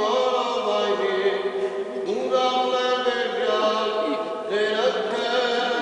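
Church liturgical chanting: sung voices holding long notes and stepping from one pitch to the next.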